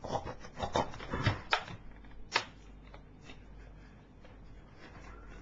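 A quick run of sharp clicks and scrapes, like objects being handled, over the first two seconds or so, ending with one louder click; after that only a faint steady low hum.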